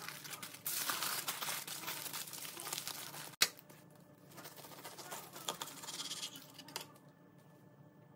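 Aluminium foil crinkling loudly as a sandwich is wrapped up in it. After a sudden click about three and a half seconds in, a knife cuts through the foil-wrapped sandwich on a plastic cutting board: softer, scratchy crinkling.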